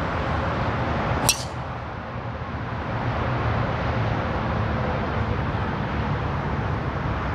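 A golf club strikes a ball once, a single sharp crack about a second in, over a steady outdoor background rumble.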